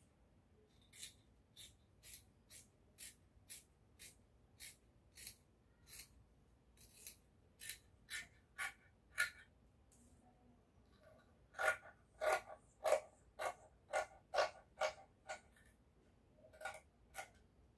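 Dressmaking scissors cutting through folded fabric: a steady run of snips about two a second, a pause of about two seconds, then a louder run of snips and two last ones near the end.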